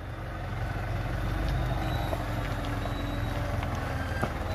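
Scania diesel engine of a log-hauling tractor running steadily, getting louder about a second in, with a few brief sharp clanks near the end.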